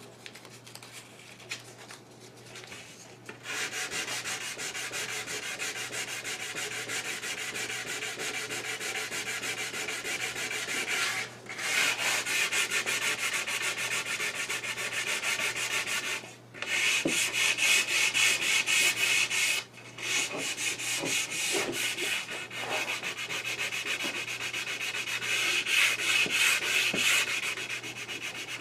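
Sandpaper being rubbed by hand along the edge of a wooden board in fast back-and-forth strokes. It starts about three seconds in and stops briefly a few times.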